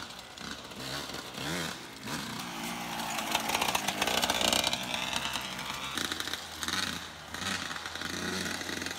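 Two-stroke Yamaha YZ125 dirt bike engine revving up and down as it is ridden, its pitch repeatedly rising and falling and loudest about four to five seconds in.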